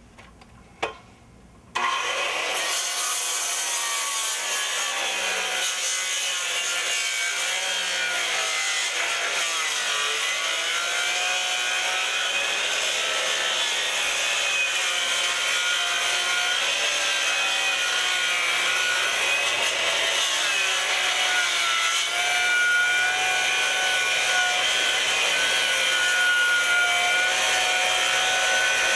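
Corded circular saw making a long rip cut lengthwise through a wooden board, taking it down to 10 inches wide. A couple of clicks, then about two seconds in the cutting starts and runs on continuously, its whine wavering in pitch as the blade is pushed along the board.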